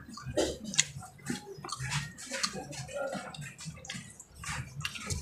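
Wet chewing and lip-smacking of boiled corn kernels: a string of irregular, short smacks and clicks from the mouth.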